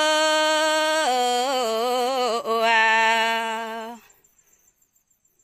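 A single unaccompanied voice singing a Red Dao folk song (hát lượn) in the Dao language: a long held note that drops to a lower pitch about a second in, wavers with ornaments, breaks briefly, then holds and stops about four seconds in.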